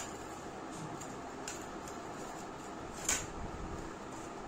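Small knife cutting into the rind of a watermelon resting in a steel plate: a few faint clicks, with one sharper click about three seconds in.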